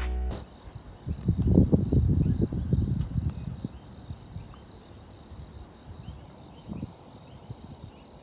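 Crickets chirping: a steady, high trill with a regular pulse. A loud low rumble on the microphone swells about a second in and dies away over the next two seconds, and music cuts off just at the start.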